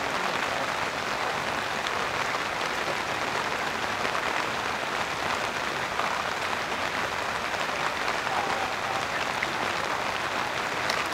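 Steady rain, an even hiss of drops falling.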